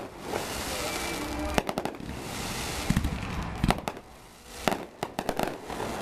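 Aerial fireworks shells bursting: several clusters of sharp bangs, some in quick runs, with crackling and hiss between them.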